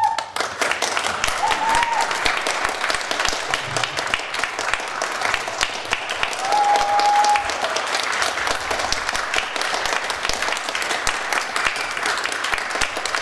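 Audience applauding: a dense, steady clatter of many hands clapping, with a couple of brief high calls from the crowd about a second and a half in and again around seven seconds.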